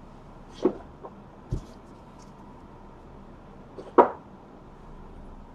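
Three short, light knocks, the loudest about four seconds in, over faint background hiss: trading cards being handled and set down on a table.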